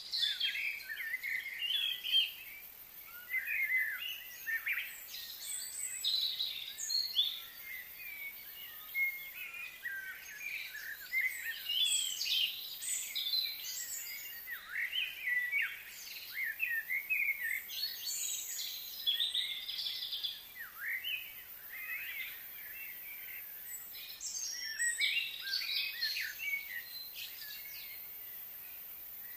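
Several small birds chirping and calling in the trees: a busy, overlapping chorus of short, quick chirps and whistled notes, with brief lulls.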